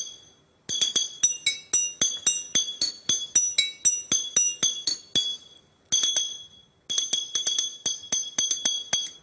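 Small metal chimes struck in quick succession, about four ringing notes a second in a changing, tinkling melody that pauses briefly twice, from a toy model train that plays music.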